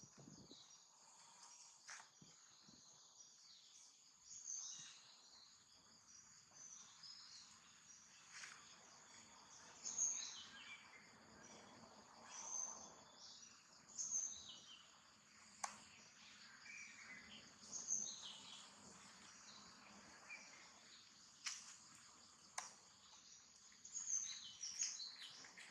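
Faint outdoor ambience: a steady high insect drone with short, falling bird chirps every couple of seconds, and a few light clicks.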